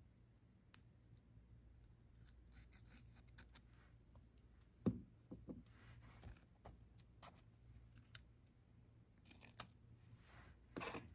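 Quiet journaling desk sounds: paper being handled and rubbed, short scratchy strokes, a sharp tap about five seconds in and a louder rustle near the end.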